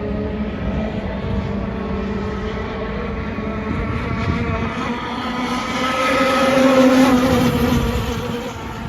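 Small petrol engine of a Mystic 185 radio-controlled gas boat running on the water with a steady buzz. It grows louder and slightly higher in pitch from about halfway through, peaking near the end, then eases off.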